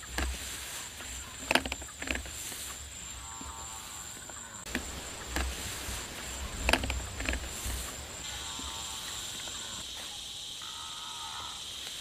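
Field ambience: a steady high-pitched insect drone that stops about two-thirds of the way through, with a few sharp knocks and three short animal calls over a low rumble.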